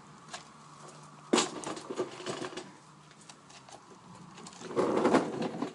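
Handling noise as a gloved hand prods and rubs thick oil sludge inside an engine rocker cover: scattered small clicks and rubbing, with a sharp louder sound about a second in and a louder stretch of rubbing near the end.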